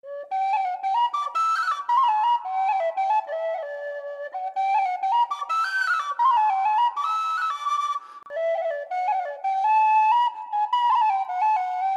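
Intro music: a bright, quick melody of short stepping notes in a flute-like register, breaking off briefly about eight seconds in and ending on a held note.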